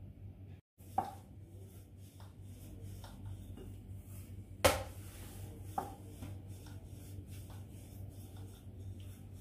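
Hands pressing and flattening a ball of doughnut dough on a floured board, then a wooden rolling pin rolling it out: soft rubbing and scraping with a few light knocks, the sharpest about halfway through, over a low steady hum.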